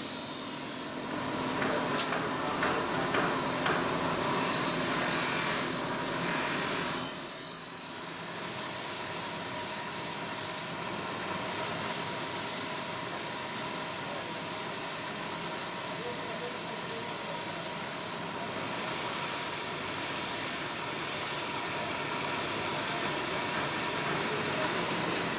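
Steady abrasive grinding on a steel knife blade: a continuous rasping hiss, with a faint steady tone from the machine underneath.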